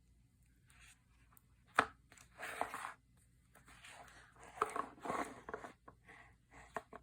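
Slime being squished and pressed by hand in short, crackly squelches, with a sharp pop about two seconds in.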